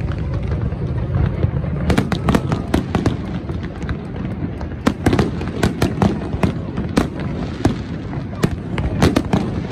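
Aerial fireworks going off: a rapid, irregular run of bangs and crackling pops from bursting shells, over a steady low rumble, heard from inside a car.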